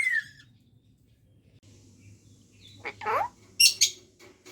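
Pet talking parrot calling: a short sliding voice-like call about three seconds in, then a few sharp, high chirps. A whistled note ends just as it starts.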